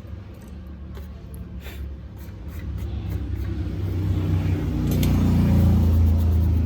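A low rumbling drone that grows steadily louder through the second half, with a few faint light clicks over it near the start.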